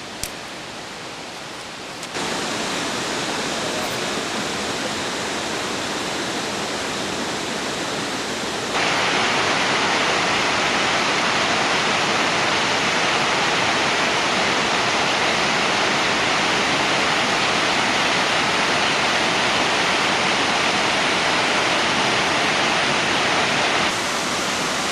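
Steady rushing noise with no pitch to it, of the kind running water or rain makes. It jumps louder about two seconds in and again about nine seconds in, then drops slightly near the end.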